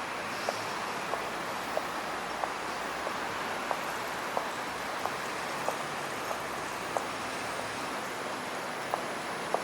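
Steady night-time city street ambience, a constant hum and hiss of traffic and the surroundings, with a short sharp tick repeating very regularly, about three every two seconds.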